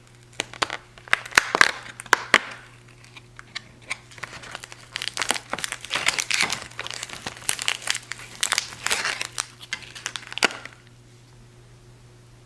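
Cardboard and paper packaging crinkling and tearing in a run of sharp crackles as a tea Advent calendar door is opened and a tea packet is taken out. The crinkling stops about two seconds before the end.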